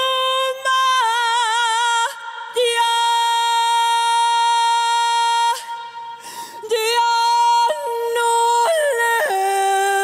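A woman singing ranchera alone, with no band playing under her. She holds long high notes with a wavering vibrato and jumps suddenly between pitches, in the manner of a yodel. There is one long steady note a few seconds in, and the line falls lower near the end.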